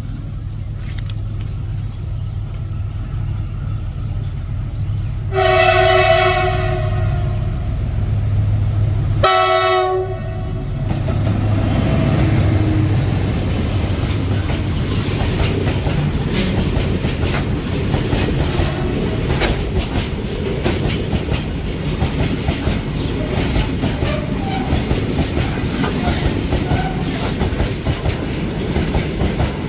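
Indian Railways WAG-7 electric locomotive sounding its horn twice, a blast of about a second and a half roughly five seconds in and a shorter one about nine seconds in, over a low steady hum. After that the freight train's BCNA covered wagons roll past with a steady clickety-clack of wheels over the rail joints.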